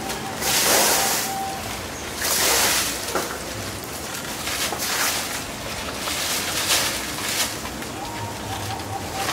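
A plastic bag and paper wrapping rustling and crinkling as they are handled, in irregular bursts. The loudest come about half a second in and about two seconds in.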